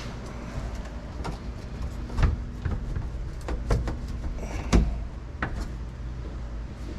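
One-piece back window panel knocking and scraping as it is slid and wedged into the rear of a Can-Am Maverick X3's cab: a run of sharp knocks, the loudest about two seconds in and again just before five seconds.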